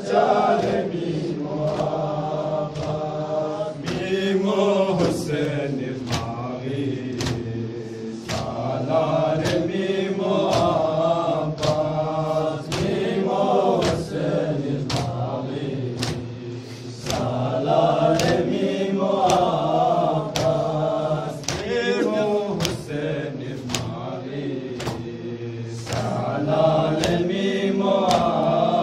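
Men chanting a Balti noha, a Shia lament, together into a microphone, with a steady beat of chest-beating (matam) slaps keeping time, about three every two seconds.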